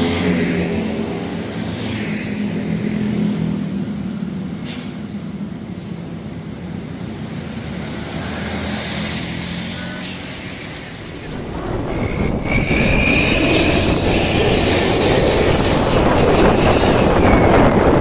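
Tour bus engine running through a loud aftermarket exhaust, a steady low drone that swells into a much louder roar about eleven seconds in, with a high thin tone briefly over it.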